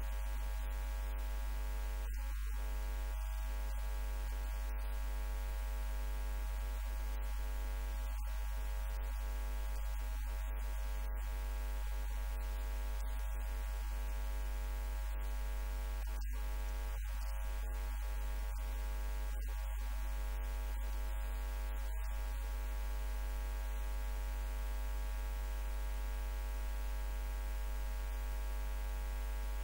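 Steady electrical mains hum: a low, unchanging buzz with a stack of even overtones, and no speech.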